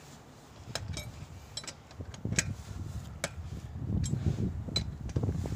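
Metal clinks of a lug wrench and lug nuts being worked at a car wheel hub: a scattering of sharp clinks, with a low rumble building up in the second half.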